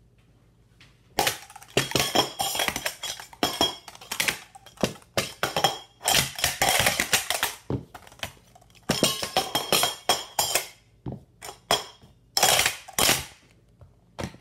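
Metal sport-stacking cups being stacked and unstacked at speed on a table mat, a fast run of sharp metallic clacks and clatters starting about a second in and stopping near the end. The pattern of short flurries with brief gaps follows a full stacking cycle, from 3-6-3 up through the taller stacks and back down to 3-6-3.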